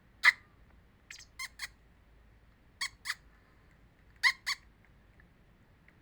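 A small bird giving short, sharp calls: one loud call, then a group of three, then two pairs, the calls in each pair about a quarter of a second apart.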